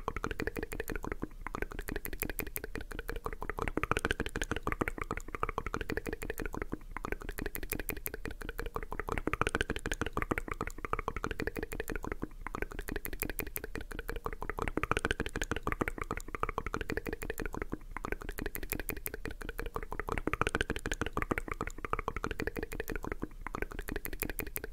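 Continuous rapid plastic clicking and clacking from the Akko 3098 mechanical keyboard while its keycaps are handled and swapped.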